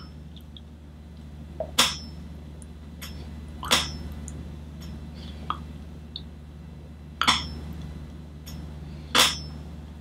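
Sharp clicks from the mouth and jaw as it is opened wide and closed, four loud ones about two seconds apart with a few fainter ones between, over a steady low hum.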